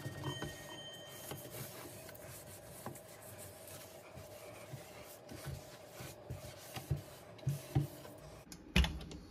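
Cloth rubbing over the polished wooden case of a 1945 Mauthe mantel clock as it is wiped down. A few light knocks come in the second half, with the loudest one near the end.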